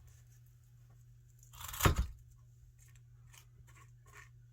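A short tearing rasp from a strip of 3/4-inch Velcro hook-and-loop tape about two seconds in, followed by a few faint clicks and rustles of handling.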